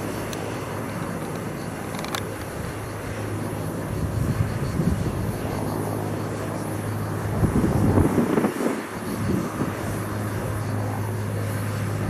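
A steady low engine drone, with gusts of wind buffeting the microphone, strongest about eight seconds in.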